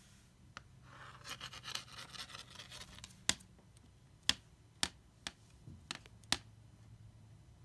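Plastic Sharpie marker being batted by a kitten on a hard wood-look floor. First there is a second or two of rapid rattling and scraping, then several sharp clicks as the marker knocks against the floor.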